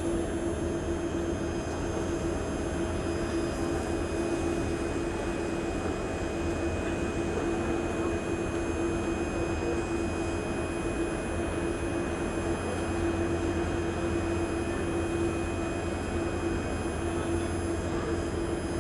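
Singapore MRT train standing at a station with its doors open: a steady hum with a constant tone, unchanging throughout.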